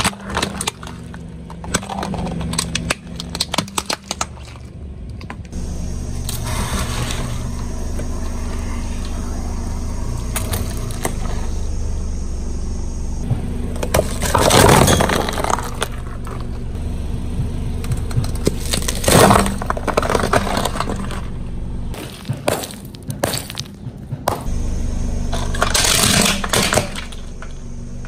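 Car tyre slowly rolling over and crushing brittle objects: clusters of crackling snaps and several louder breaking cracks over the low, steady run of the car's engine.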